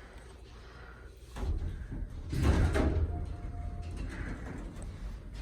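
Elevator doors sliding, with a low rumble that starts about a second and a half in and swells briefly. A short steady tone follows near the middle.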